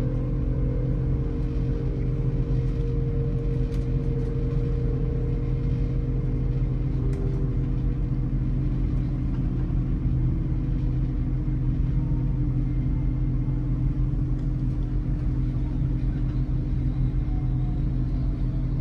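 Cabin sound of a GWR Intercity Express Train moving slowly through a station: a steady low rumble and hum from the running gear and traction equipment. A whine over it falls in pitch twice, through the first several seconds and again near the end.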